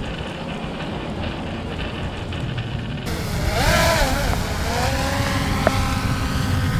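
Quadcopter drone flying overhead, carrying a baited shark line out over the water: its propellers whine, the pitch rising and falling about halfway through as it manoeuvres, then holding steady. A low rumble runs underneath throughout.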